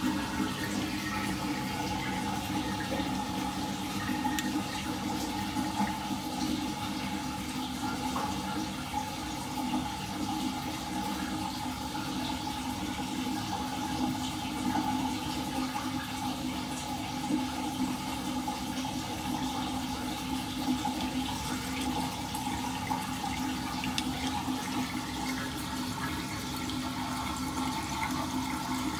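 Water swirling in a whirlpool down a drain, a steady rush of draining water that runs on without a break: the drain is flowing freely, its pipe unclogged.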